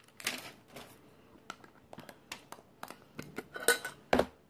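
Light clicks, taps and brief rustles from handling a clear plastic candy tub with a metal lid while the lid is worked at, growing busier near the end with a sharp knock about four seconds in.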